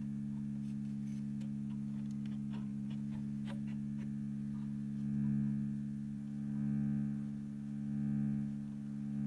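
EMS Synthi envelope shaper cycling at its fastest setting, so fast that the repeating envelope becomes a steady low audible tone. From about five seconds in the tone swells and fades roughly every second and a half, with a few faint clicks in the first few seconds.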